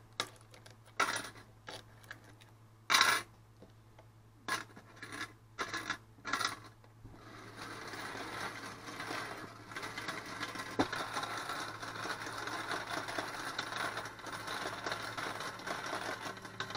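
Coins clinking as they are handled and dropped, about eight sharp separate clinks in the first seven seconds. Then, about halfway through, a home coin sorting machine starts running: a steady whirring rattle of coins being churned inside it, from a sorter that is not sorting as it should.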